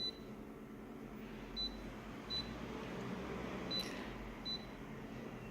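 Short high beeps from a colour photocopier's control panel as its settings are keyed in, five in all at uneven intervals, over the machine's steady low hum.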